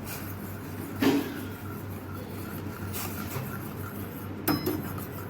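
Cooking utensils at work in a pan of semolina: a few light knocks and a sharp metallic clink about four and a half seconds in, over a steady low hum.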